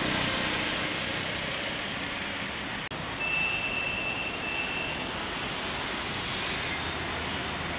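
Steady rushing noise of road traffic, with a short dropout about three seconds in followed by a thin high whine lasting under two seconds.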